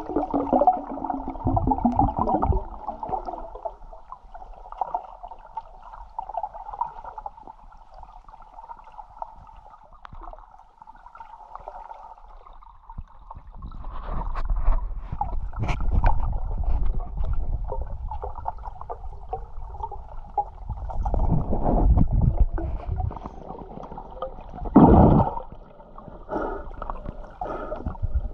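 Muffled underwater sound picked up by an action camera held below the surface: water gurgling and sloshing, with irregular low rumbling swells and scattered clicks, and a strong thump near the end.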